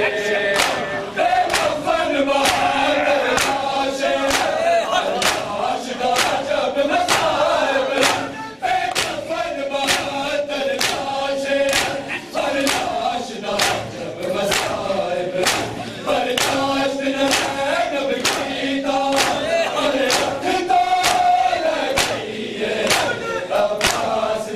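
Shia matam: a group of men chanting a mourning lament together while beating their chests in unison, the hand strikes falling on a steady beat of about one and a half a second.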